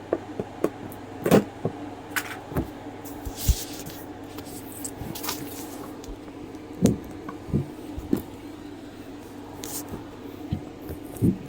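A doll's cardboard and plastic display box being handled and opened: irregular clicks, taps and short rustles of the packaging, over a steady low hum.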